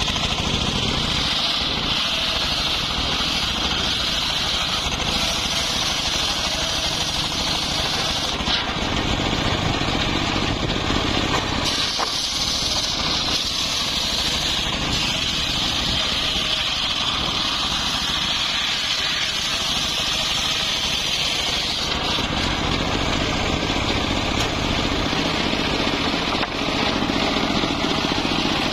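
Engine-driven saw cutting through mahogany wood, running loud and steady, its tone shifting a few times as the cut goes on.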